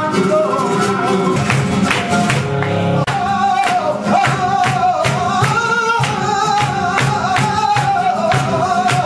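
Live flamenco: a male cantaor sings a long, wavering, ornamented line over flamenco guitar, with sharp percussive strikes throughout.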